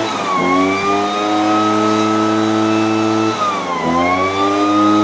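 A small engine of machinery clearing volcanic ash off the asphalt runs steadily with a high whine over it; its pitch dips briefly and recovers twice.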